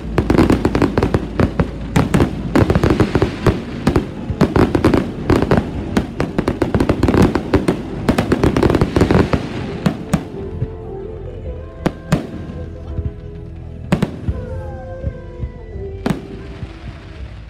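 Rapid barrage of aerial firework shells bursting and crackling, many bangs a second for about ten seconds, then thinning to a few scattered bangs as background music comes in.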